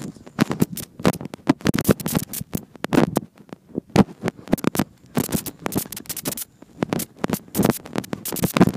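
Handling noise from a tablet's built-in microphone being rubbed and knocked while it is carried at a run: an irregular string of scratchy scrapes and knocks.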